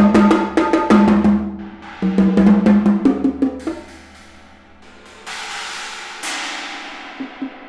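Solo percussion: a fast flurry of mallet strokes on drums that dies away about halfway through, followed by two suspended-cymbal strikes about five and six seconds in, left ringing and fading.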